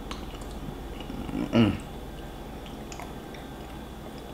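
A person chewing a mouthful of food, with faint wet mouth clicks, and one brief low vocal sound about one and a half seconds in.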